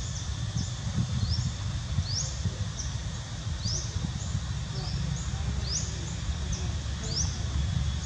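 A bird calling over and over with short, high chirps that sweep upward, about two a second, over a steady low rumble.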